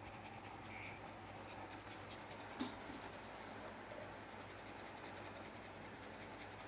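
Faint rustling of a hand stroking a dog's fur against a blanket, with one light click about two and a half seconds in.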